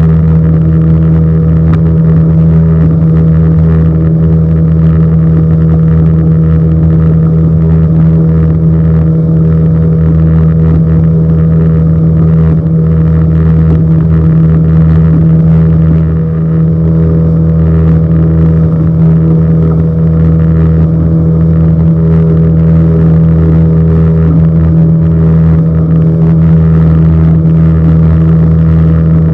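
Small fishing boat's engine running steadily at an even speed, a constant low hum that does not change.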